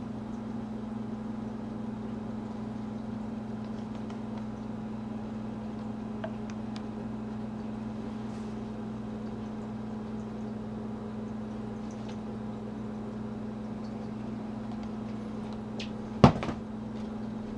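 Steady low hum of room background noise, with a few faint handling ticks and one sharp knock about a second before the end.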